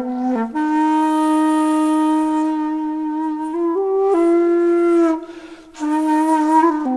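Background music: a solo reed-like wind instrument holding long notes, stepping up in pitch about three and a half seconds in, breaking off briefly a little after five seconds, then resuming with a few quick notes near the end.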